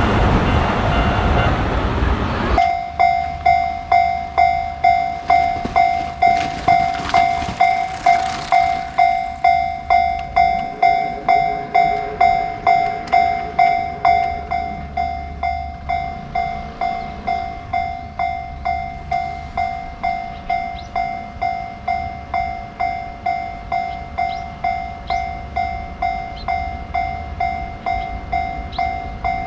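Japanese railway level-crossing alarm: an electronic bell striking steadily at about one and a half to two times a second. The first couple of seconds hold the loud rushing noise of a passing train, which cuts off suddenly before the bell begins.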